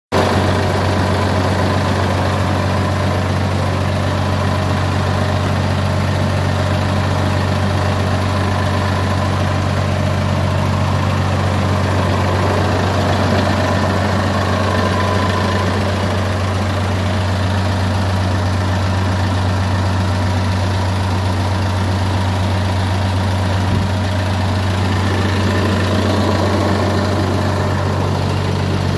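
An engine idling steadily with a deep, even hum.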